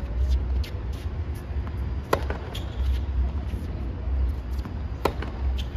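Tennis balls struck by racquets in a baseline rally: two sharp, loud racquet hits about three seconds apart, with fainter hits and ball bounces between them, over a low rumble.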